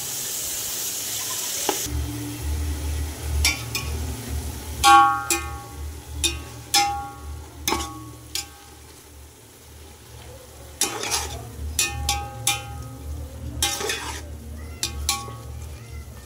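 Metal spoon stirring chopped tomatoes and onions in a large metal pot, repeatedly scraping and knocking against the pot so that it rings with each clink. For the first two seconds the tomatoes sizzle in the hot oil.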